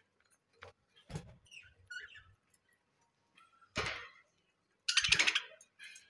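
Pet budgerigars making short chirps and squeaks, with louder harsh, rustling bursts about four and five seconds in.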